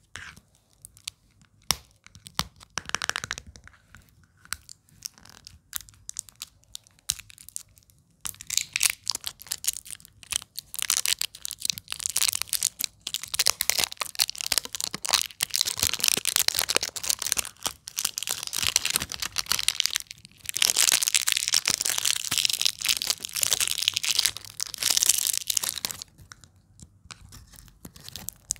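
Plastic shrink wrap crinkling and tearing as fingers pick at it and peel it off a jar. Scattered sharp crackles come first, then dense continuous crinkling from about a third of the way in, with a short break past the middle, thinning out near the end.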